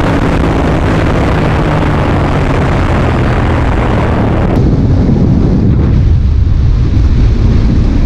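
Motorcycles running flat out, heard as a heavy rush of wind on the microphone over a steady engine drone. It starts from the Royal Enfield Interceptor 650's parallel-twin engine, with a KTM RC 390 running alongside. A little past halfway it changes to the duller sound of a TVS Apache RR310 at speed.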